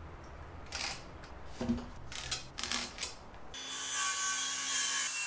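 A few knocks and scrapes as a circular saw is set against a wooden 4x4 post, then about three and a half seconds in the saw starts and runs with a steady whine, cutting into the post.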